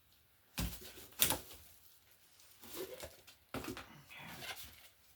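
A few knocks and clicks of objects being handled and set down, the loudest a sharp click about a second in, with softer knocks and rustling around three and four seconds in.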